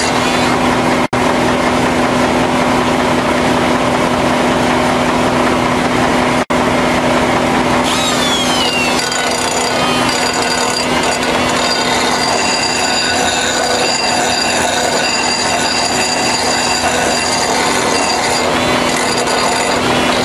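Pneumatic die grinder running continuously while it grinds the steel cutting edge of a tractor finishing-mower blade to sharpen it: a steady machine tone under harsh grinding noise. From about eight seconds in, higher squealing tones join as the grinder bites the steel.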